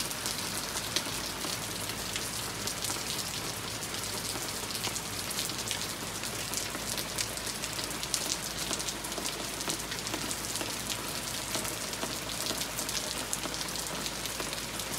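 Steady rain falling on a wooden deck and the surrounding woods: a dense spatter of small drop hits with no let-up.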